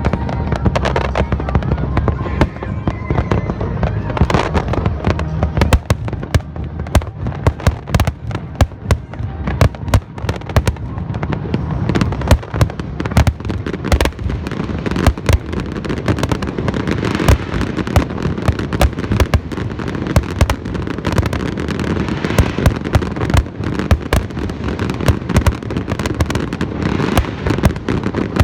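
Fireworks display: a dense, continuous barrage of bangs and crackling reports, growing thicker about halfway through.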